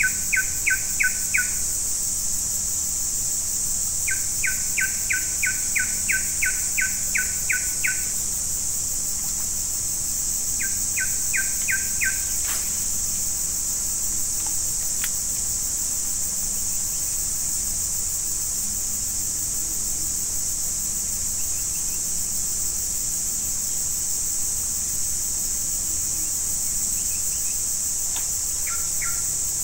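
Steady high-pitched chorus of forest insects, with a bird calling in quick runs of short, evenly repeated two-pitched notes. There are three runs in the first twelve seconds: the longest lasts about four seconds, and the last is short and ends about twelve seconds in. After that only a few scattered notes are heard.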